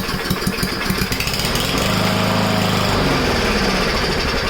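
Powermore 140cc single-cylinder engine on a Yard Machines push mower running unevenly. Its speed surges up about two seconds in and sags again a second later; the owner puts the rough running down to a carburettor problem.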